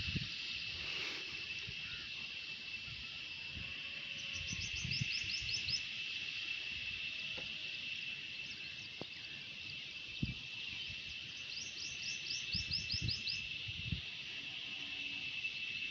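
Rural outdoor ambience: a steady high-pitched insect drone, with a bird twice giving a quick run of about eight to ten chirps, about five seconds in and again about twelve seconds in. Faint low thumps come and go underneath.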